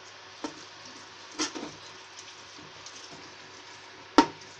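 Steel slotted spoon stirring yogurt into thick masala in an aluminium pot: soft scraping with a few clinks against the pot, the sharpest knock about four seconds in.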